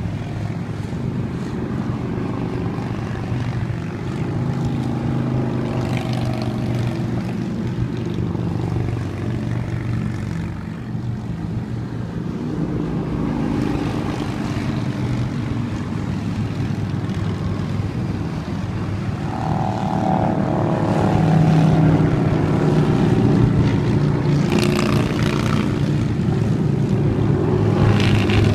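A stream of motorcycles riding past, their engines running continuously and overlapping as bikes come and go. The sound grows louder from about twenty seconds in.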